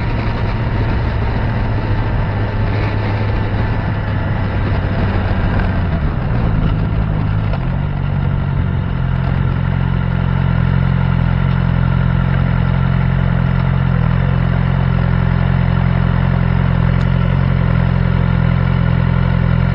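Suzuki GSX-R 600's inline-four engine running as the motorcycle rolls along. The engine note drops about six seconds in as the bike slows, then it idles steadily from about eight seconds in.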